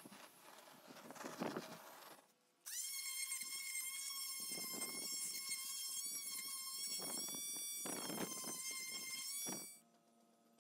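Power tool at work on wood: about two seconds of rough grinding noise, then the motor spins up to a high, steady whine that runs about seven seconds, broken by a few short rough bursts, and stops abruptly near the end.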